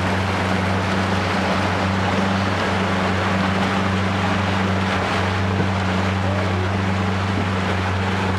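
A small motorboat's engine running with a steady low hum as the boat moves along, under a continuous hiss of water and wind.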